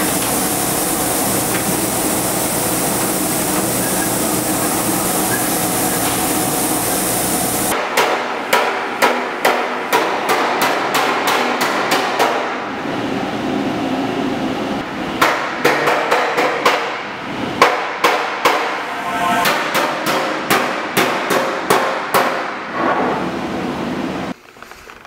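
A steady, loud rushing noise for about the first eight seconds, then a body hammer striking a sheet-metal car body panel, irregular blows one to three a second, as in panel beating. The sound drops away suddenly just before the end.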